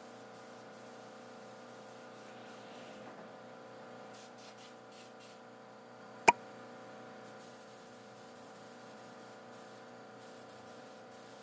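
A steady hum made of a few fixed tones, with one sharp click about six seconds in.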